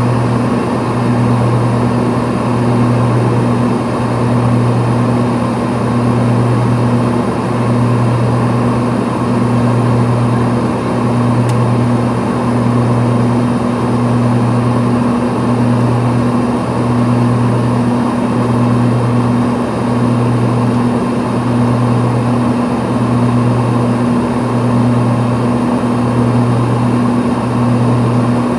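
Beechcraft King Air B200GT's twin turboprop engines and propellers droning steadily inside the cabin, a deep hum with a slow, even throb about every second and a half to two seconds: the beat of the two propellers turning at slightly different speeds.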